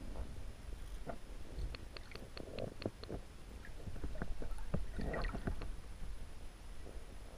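Underwater sound picked up by a camera just below the lake surface: bubbling and gurgling water with a low rumble and many sharp little ticks and clicks, busiest about two seconds in and again around five seconds.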